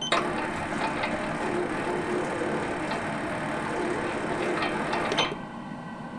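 Lathe turning slowly while winding spring wire onto a quarter-inch mandrel through a Hemingway spring winder, forming a valve spring. It starts at once and stops suddenly about five seconds in.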